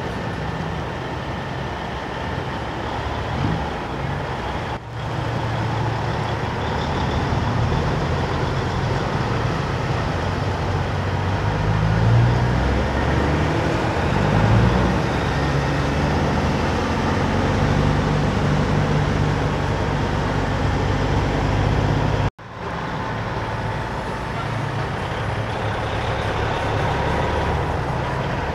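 Diesel engines of semi trucks running as the trucks drive past one after another, a low drone that swells and fades as each one goes by. The sound breaks off abruptly twice, about 5 and 22 seconds in.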